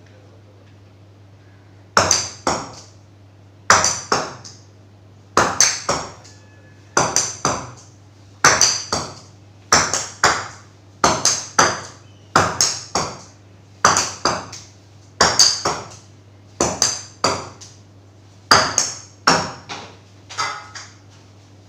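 A ball bouncing on a hard surface, dropped again and again: each drop gives two or three sharp, pinging bounces that fade quickly, about every one and a half seconds.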